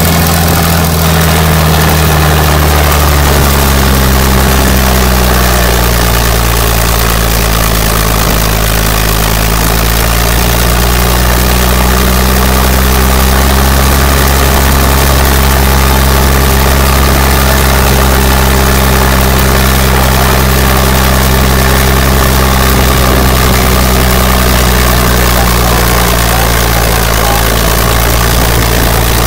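An old Volvo road grader's diesel engine running loud and steady under heavy load while pulling a weighted sled. Its pitch drops over the first few seconds, then holds fairly steady.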